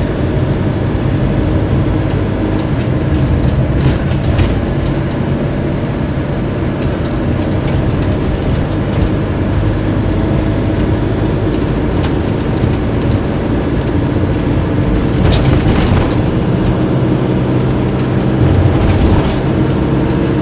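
Inside the cab of a Fiat Ducato-based motorhome on the move: steady diesel engine and road noise, with a few brief knocks from the body.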